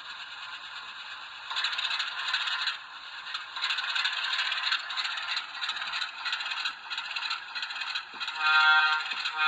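Model trains running on the track loops: a steady mechanical rattle with quick clicks of wheels over the rail, getting louder about a second and a half in. Near the end a held tone of several pitches comes in and lasts about two seconds.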